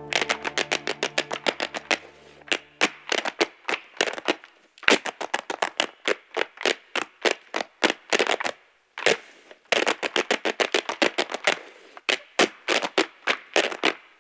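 Hard-shoe Irish dancing: fast, sharp taps and clicks of dance shoes in quick rhythmic runs, with two brief breaks. Low held music notes under the first few seconds fade out, leaving the taps alone.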